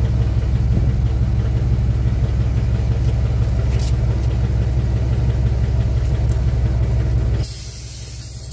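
Dodge B3500 van's engine idling steadily with a low hum, cutting off abruptly about seven seconds in, followed by a brief hiss.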